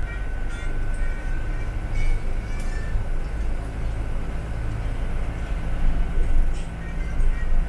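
Airport apron bus driving, its engine and drivetrain making a steady low rumble with a faint steady whine above it and a few light rattles.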